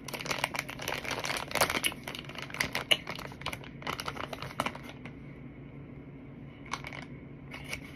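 Plastic bag rustling and crinkling as a hand reaches into it, with many crisp clicks and crunches of starch chunks being handled and chewed; the clicking thins out about five seconds in, leaving a few single clicks.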